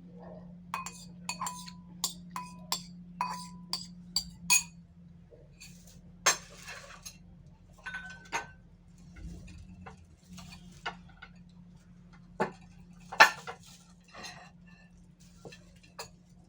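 Eating utensils clinking against a dish, a quick run of ringing clinks at first, then scattered clinks and scrapes, the loudest about three seconds before the end.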